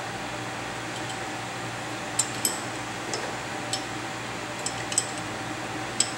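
Combo mill-lathe motor running with a steady hum. Sharp metallic clinks come at irregular intervals, about eight of them from a couple of seconds in.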